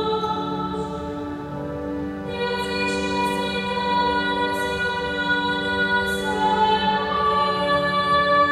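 Youth choir singing a psalm setting over organ accompaniment, in long held chords that change about two seconds in and again near the end, with the sung 's' sounds hissing briefly.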